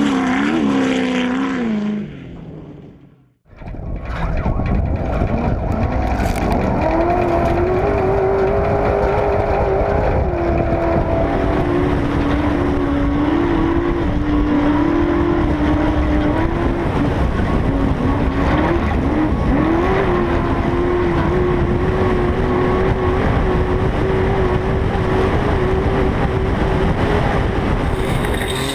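Race vehicle engine revving, then fading out to near silence about three seconds in. From about four seconds on, an engine runs hard and fairly steadily, its pitch wavering up and down a little, with a rough rushing noise around it.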